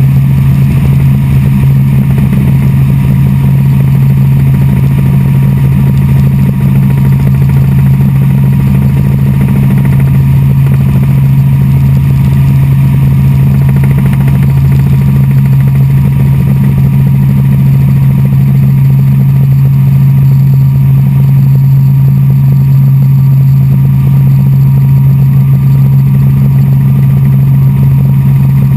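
Helicopter in flight, heard from inside the cabin: the rotor and engine run in a loud, steady, unbroken drone.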